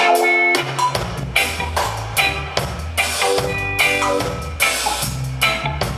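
Live reggae band playing an instrumental passage: drum kit keeping the beat under a deep bass line, with electric guitar chords on top.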